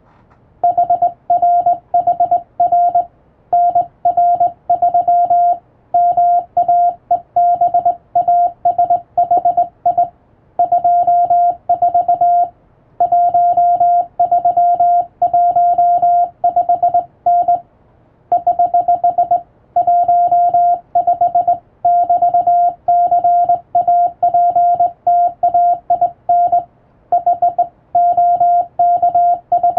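Morse code sent by hand on a telegraph key: one steady beep keyed on and off in short dots and longer dashes, spelling out English-alphabet text, with short pauses between letters and longer ones between words. It starts just under a second in.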